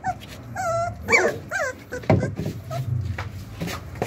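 24-day-old Doberman puppies whimpering and yipping, with several short rising-and-falling whines in the first two seconds and scattered small knocks.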